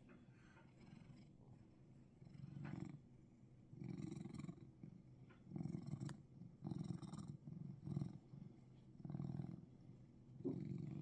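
Russian Blue cat purring while its chin and cheek are scratched: a faint low rumble that swells with each breath, roughly once a second, starting about two seconds in.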